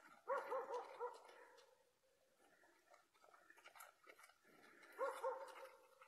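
A dog whimpering in a quick string of short, rising-and-falling yelps, then a second, shorter string about five seconds in.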